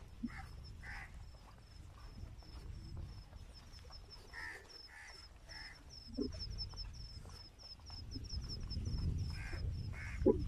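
Crows cawing in short runs of harsh calls, about a second in, again around four to six seconds and near the end, over a continuous rapid high chirping and a low rumble.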